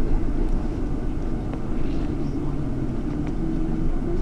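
Double-decker bus's engine running with a steady low drone, heard from inside on the top deck, with a low hum that rises slightly in pitch near the end.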